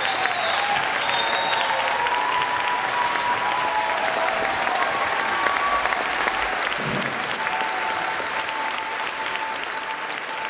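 Audience applauding steadily, with a few drawn-out cheers carried over the clapping; the applause eases slightly near the end.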